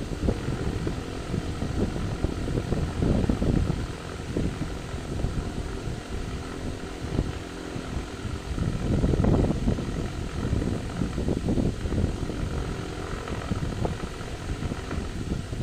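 Low rumbling air noise buffeting the microphone, like a fan's draught, swelling louder about three seconds in and again around nine seconds.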